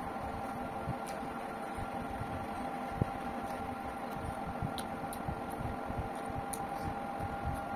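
A person eating rice and fish by hand and chewing, with small mouth clicks, a few soft bumps and one sharp knock about three seconds in. Under it runs a steady mechanical hum, like a room fan.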